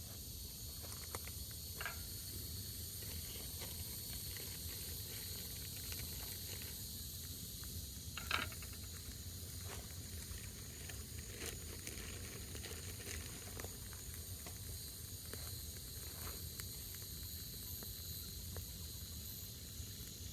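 Open wood campfire burning: a steady hiss with scattered crackles and pops, one sharper pop about eight seconds in.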